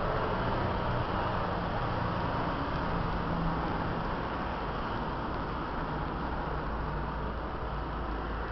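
Steady rumble of distant city traffic, with a faint low drone that comes and goes.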